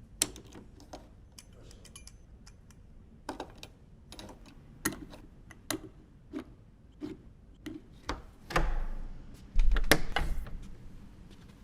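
Door handle and latch hardware clicking and knocking as it is handled and worked on, in a series of separate sharp clicks. A louder stretch of rattling and knocking comes about eight to ten seconds in.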